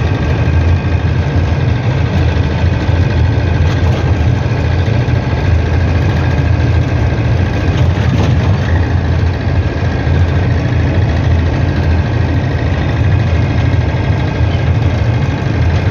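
Steady low rumble of a car's engine and tyres while driving along a road, heard from inside the cabin.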